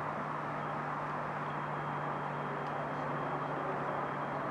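Steady outdoor night background noise, like distant traffic, with a low steady hum that cuts off at the end.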